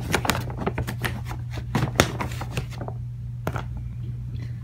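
Hands rummaging through balls of yarn in a plastic storage box: rapid rustling and light knocks of plastic, busiest in the first two seconds or so, then a few scattered knocks.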